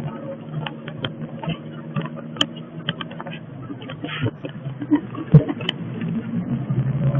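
A car's engine running as it drives, heard from inside the cabin as a steady low hum with road noise. Scattered sharp clicks sound through it, the loudest about five seconds in.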